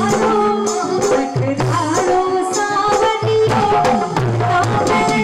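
Live Hindu devotional bhajan music: a sustained melody line over a steady hand-drum beat.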